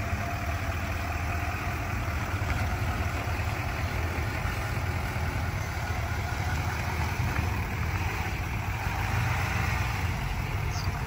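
Engine of a lifted GMC Denali HD pickup running steadily at low revs as the truck rolls slowly away, a constant low hum with no revving.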